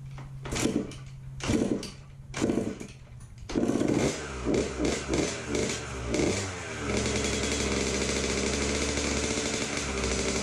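1999 Kawasaki KX125 125cc two-stroke single, through its FMF Fatty pipe, kicked over a few times on its first start after a rebuild. It catches about three and a half seconds in, revs rise and fall unevenly, then it settles into a steady idle about seven seconds in.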